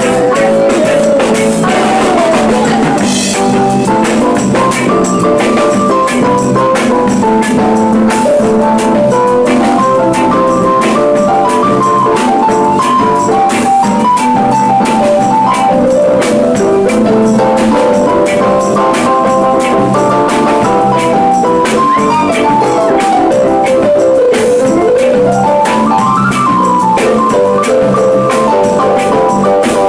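Live band playing: a drum kit keeps a steady beat under a melody of short, quick notes.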